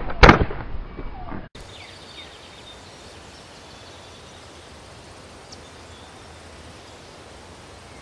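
One loud pistol gunshot a moment in, its ringing tail dying away until the sound cuts off abruptly after about a second and a half. After that there is only faint steady outdoor background noise.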